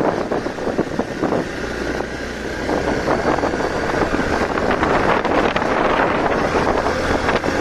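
Hero Xpulse 200's single-cylinder engine running under load up a steep climb, with wind buffeting the microphone.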